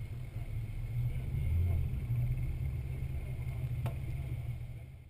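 Jeep engine and drivetrain running steadily at low speed as the Jeep rolls across sand, heard as a low rumble. There is a single sharp click about four seconds in, and the sound fades out near the end.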